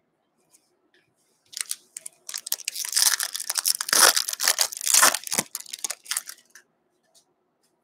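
Foil wrapper of an O-Pee-Chee hockey card pack being torn open and crinkled by hand: a dense crackle that starts about a second and a half in and lasts about five seconds.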